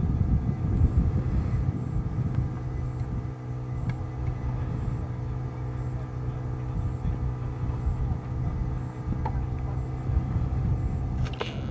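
An engine running steadily at constant speed, a low hum with a fixed pitch. There is a short sharp click near the end.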